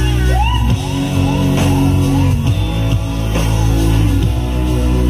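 Live pop band music played loud, with a steady deep bass, regular drum hits and a tone that glides upward again and again.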